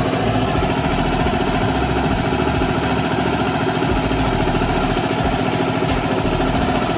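Suzuki Burgman Street 125 scooter's single-cylinder four-stroke engine idling steadily, just after a change of engine and gear oil.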